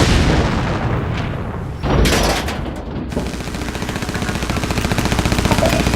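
Gunfire effects: a sudden loud blast at the start, another bang about two seconds in, then rapid, continuous automatic fire over a low rumble.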